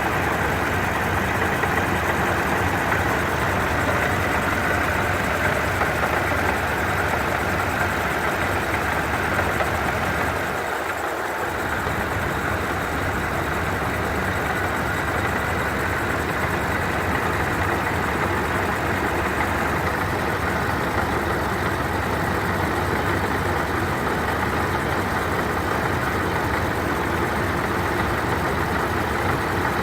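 Supercharged car engine idling with the hood open, its supercharger making a steady grinding rattle that sounds like marbles inside it: the sign of a noisy, failing supercharger. The lowest part of the sound drops away briefly about eleven seconds in.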